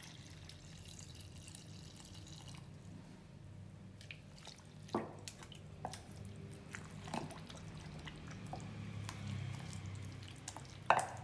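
Thin liquid poured from a steel pan into a wooden mortar of chopped paste for the first couple of seconds. Then a wooden pestle pounds and stirs the wet paste in the wooden mortar, giving scattered soft knocks and a louder knock near the end.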